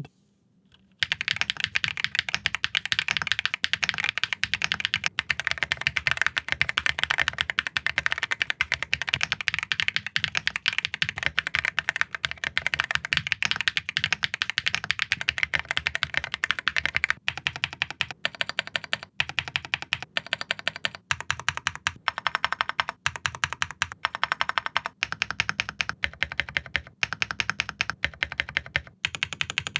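Fast typing on the Tars T1, an 80% aluminum mechanical keyboard with Tars × Kailh linear switches in a screwed-in standoff mount, giving a stiff, bright, clacky sound. The typing starts about a second in as a steady stream of keystrokes, and in the second half it comes in short bursts with brief pauses.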